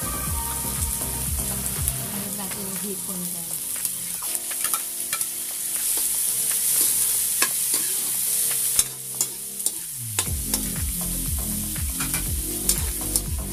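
Onion, garlic and tomato sautéing in hot oil in a steel wok, sizzling steadily, with a metal spatula stirring and scraping and clicking against the pan many times. Raw shrimp are scraped in from a bowl partway through and stirred into the oil.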